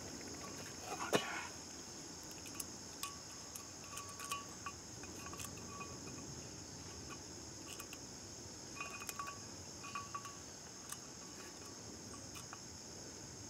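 Steady high-pitched insect chorus, with scattered small metallic clicks and taps as a micrometer is set against a brake rotor to measure its thickness.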